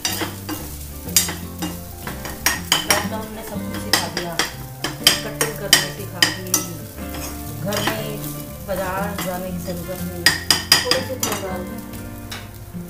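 A spoon stirring and scraping in a pan of sizzling tempered rice, clinking against the pan again and again.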